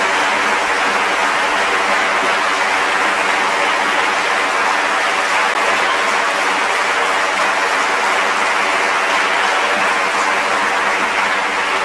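Large audience applauding steadily: a dense, even clatter of many hands clapping.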